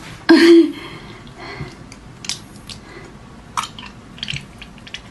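Close-miked eating sounds: scattered short crunches and wet mouth clicks of someone biting and chewing food. A short, loud voiced sound about a third of a second in is the loudest thing.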